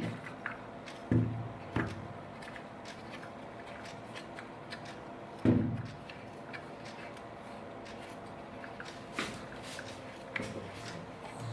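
A few dull knocks, about a second in, near two seconds and about five and a half seconds in, with fainter clicks later: objects being handled and set down.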